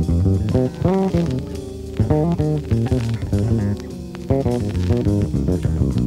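Jazz-rock fusion instrumental: electric bass guitar and guitar playing many quick notes over a drum kit, with a few bent notes about a second in.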